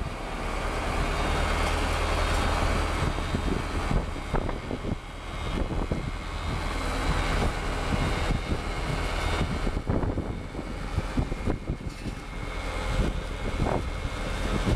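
Tractor engine running steadily as it drives, under an even rushing noise, with scattered short knocks.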